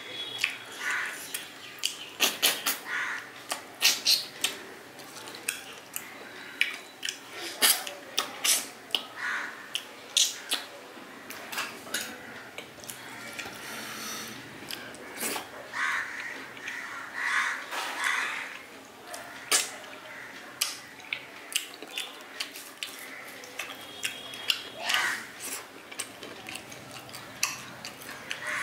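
Close-up eating sounds: chewing, wet mouth clicks and lip smacks, many short irregular crackles with a few longer smacking bursts, and now and then a light clink of a plate.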